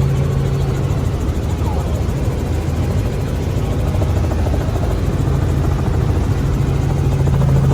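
Helicopter running in flight: a loud, steady engine and rotor noise with a strong low hum, which eases a little about a second in and comes back near the end.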